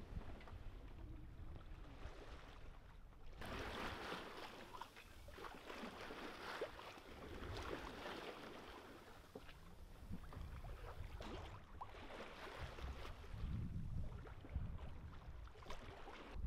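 Water rushing and splashing along the hull of a Pacific Seacraft Dana 24 sailing under sail alone, with no engine running. The rush grows fuller a few seconds in, and low wind rumble on the microphone comes and goes, strongest near the end.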